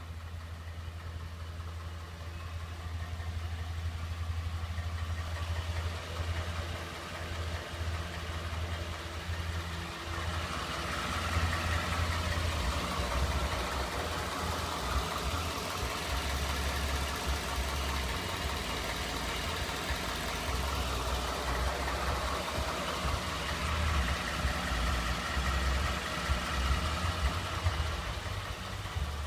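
Ford Coyote 5.0L DOHC V8 running with an engine knock, a fault the owner says most of these engines have. It grows louder about a third of the way in.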